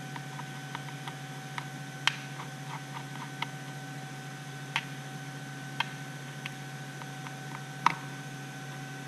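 Scattered small clicks and taps, a dozen or so at uneven intervals with the sharpest about two seconds in and near the end, from hands handling small parts at a flight controller board and its wiring. A steady hum with a faint higher tone runs underneath.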